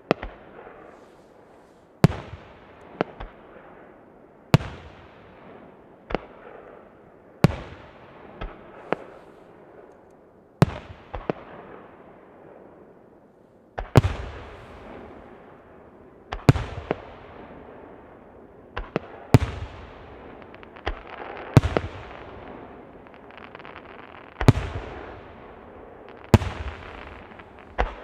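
Aerial fireworks bursting one after another: a sharp bang every two to three seconds, each followed by a long echo, with crackling filling the gaps in the later part.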